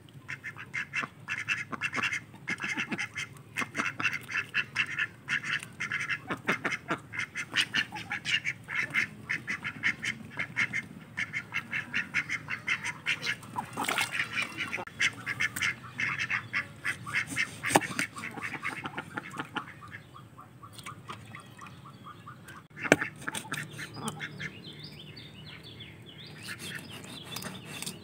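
A flock of domestic ducks quacking, with many short calls in quick overlapping runs that thin out about two-thirds of the way through. There are two sharp knocks, the louder one near the end.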